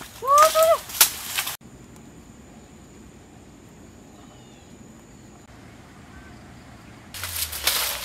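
Dogs rustling through forest undergrowth, and one of them gives two short rising yelps. Then comes quiet woodland background with a faint steady high tone and a couple of faint bird chirps. Near the end there is rustling of someone pushing through tall grass.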